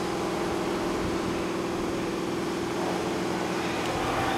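Steady machine hum at one constant pitch, over a noisy background.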